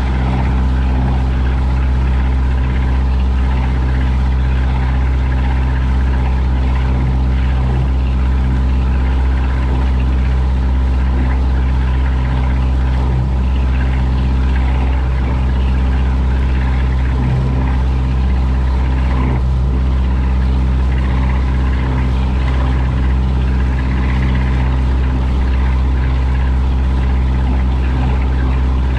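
A ship's engine running steadily: a loud, constant low drone with several steady humming tones that do not change in pitch.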